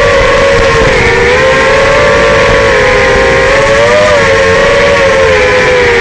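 Racing quadcopter's four brushless motors (Racerstar BR2205 2600KV) with three-blade props, whining steadily in flight. Several close pitches waver up and down together as the throttle changes.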